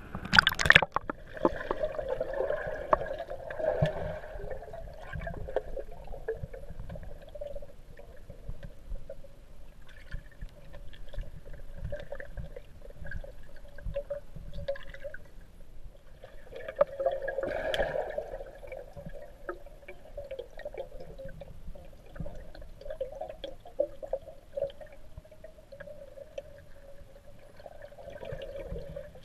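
Underwater pool sound picked up by a GoPro: a splash as the camera goes under, then muffled gurgling and bubbling with a faint steady drone and scattered small clicks, swelling louder a little past the middle.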